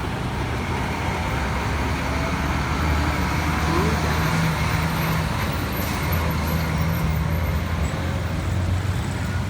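Road traffic noise: motor vehicle engines running with a steady low drone under a continuous road rumble.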